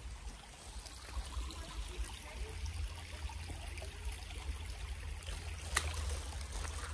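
A small stream trickling, under a low rumble on the microphone, with one sharp click near the end.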